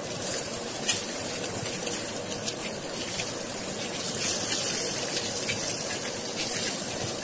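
Hot oil sizzling steadily in a frying pan as halved boiled eggs are set into it one by one, with a few faint ticks as they go in.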